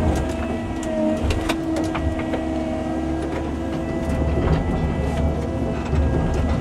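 Cat 309 mini excavator running steadily, its diesel engine and hydraulics making a continuous rumble with a steady whine, while the bucket works through tree tops. Short sharp cracks and knocks come now and then.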